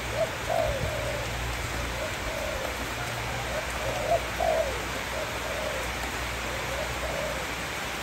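Spotted dove cooing: a run of short, arching coos in loose phrases, over a steady background hiss.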